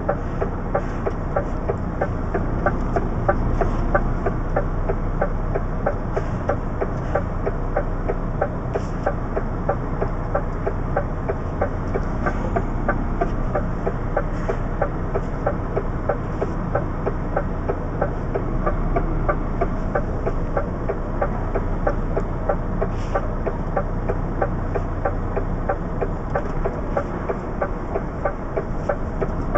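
DAF CF truck's diesel engine running at low revs, heard from inside the cab as the artic creeps through traffic, with a steady, even ticking over the hum.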